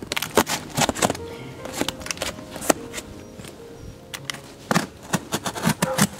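Utility knife blade sawing through corrugated cardboard, a run of irregular sharp crackles and rips, over background music.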